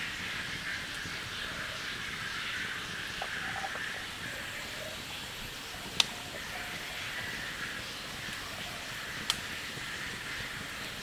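Steady rain hiss, with two sharp clicks: a loud one about six seconds in and a fainter one about three seconds later.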